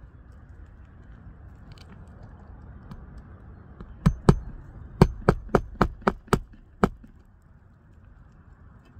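Hammer striking during shingle repair on a roof: two sharp blows, then a quick run of six, about four a second.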